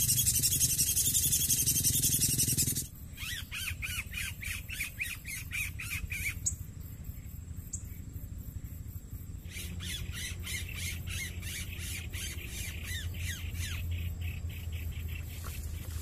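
Styrofoam block rubbed hard against the glass of a motorbike mirror, making rapid rough squeaks that imitate a yellow-vented bulbul's call to lure the bird. The squeaking comes in two runs with a quieter pause between them. It is preceded by about three seconds of loud rushing noise.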